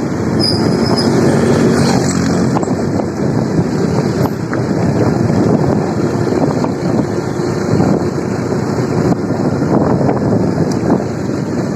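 Motorcycle engine running at cruising speed while riding, mixed with heavy wind buffeting on the microphone.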